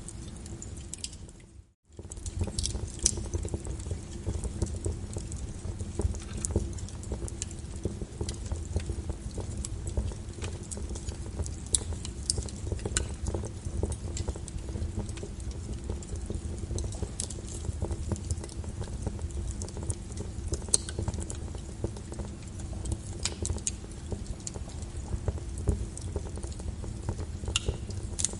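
Wood fire in a fireplace crackling, with irregular sharp pops over a steady low rumble of burning. The sound fades out briefly about a second and a half in, then comes back.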